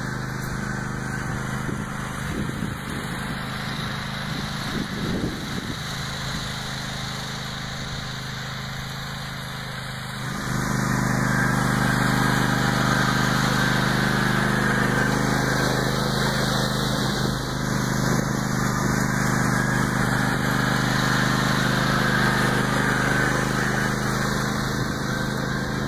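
Riding garden tractor's engine running steadily while pulling a disc harrow through tilled garden soil, growing louder about ten seconds in as the tractor comes close.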